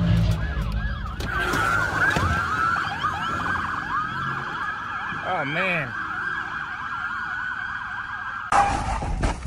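Several police car sirens wailing and yelping at once, their rising and falling tones overlapping. About eight and a half seconds in they cut off suddenly and a loud rush of noise takes over.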